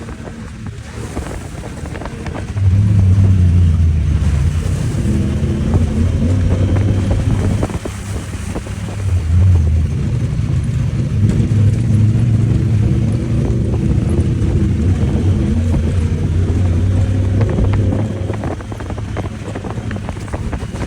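Honda Talon side-by-side's engine running on a trail under varying throttle. It picks up sharply about three seconds in, surges again around nine to ten seconds, and eases off near the end, with scattered knocks and wind buffeting the microphone.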